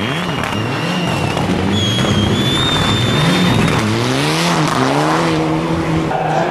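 Mitsubishi Lancer Evolution rally car's turbocharged four-cylinder engine, loud, revving up and down again and again as the car slides sideways through a corner on snow, ending in a longer rev as it pulls away. A thin high whistle sounds for about two seconds in the middle.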